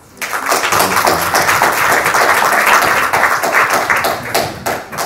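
Audience applauding. The clapping starts just after the opening and dies away near the end.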